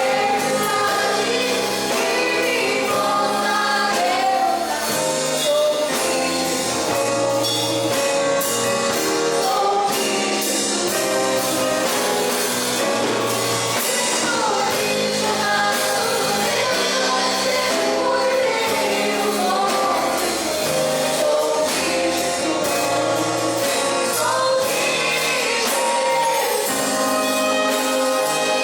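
Gospel worship song sung by a group of voices over instrumental accompaniment.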